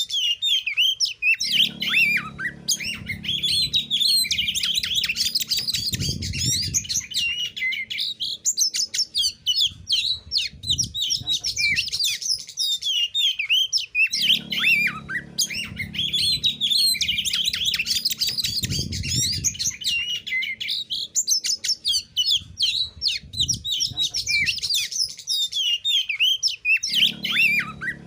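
Oriental magpie-robin (kacer) singing a fast, unbroken run of varied high chirps, whistles and trills with only brief pauses. A low hum comes and goes underneath.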